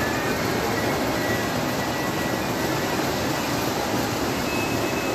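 Steady running noise of a model train layout, with its train and motorized animated carnival rides going, and a few faint high tones over it.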